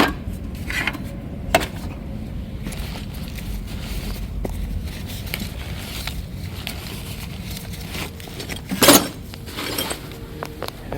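Footsteps and scattered light knocks as someone moves around a metal rolling tool cart, over a steady low rumble. One louder knock comes about nine seconds in.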